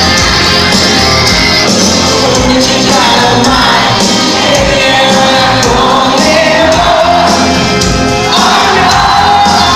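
Rock band playing loud and steady, with drums and guitars under a lead vocal singing long held notes.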